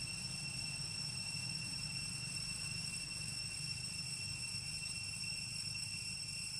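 Steady, unbroken high-pitched drone of calling insects in the trees, with a low rumble underneath.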